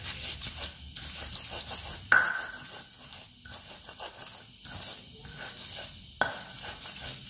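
Stone pestle grinding a wet chilli and spice paste in a black stone mortar (Indonesian cobek and ulekan): repeated rubbing, crushing strokes of stone on stone. A few sharper knocks come through, the loudest about two seconds in, with a short ring after it.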